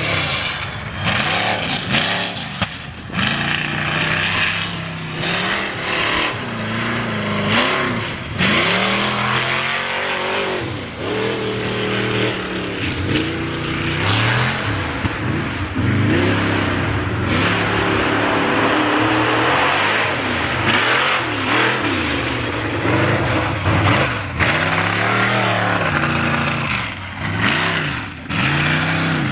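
Off-road race vehicle's engine revving up and down again and again as it works through a dirt slalom course, under a steady rush of noise.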